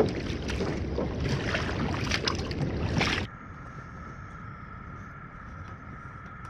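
A loud rushing noise, thick with crackles, cuts off sharply about three seconds in. It gives way to a quieter, steady high-pitched trill of night insects.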